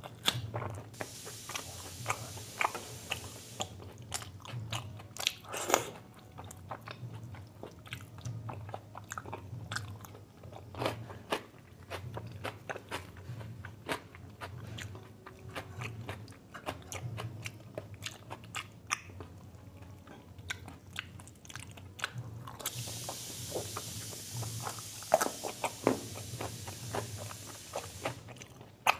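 A person chewing and biting food close to the microphone, with many sharp wet mouth clicks and smacks. Hissing noise comes in briefly near the start and again for several seconds near the end, over a steady low hum.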